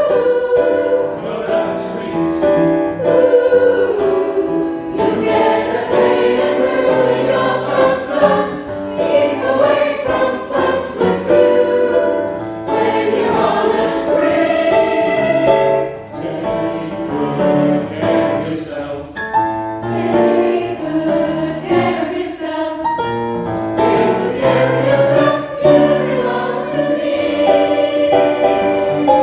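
A choir singing a Christmas song, several voices sounding together in harmony.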